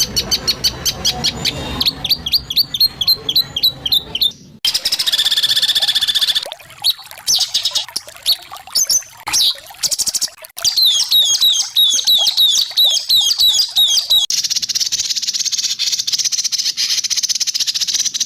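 White-rumped shama (murai batu) song phrases spliced together: rapid repeated high notes, a held trill, then a run of quick falling whistles about four a second. Near the end comes a long dry buzzing trill.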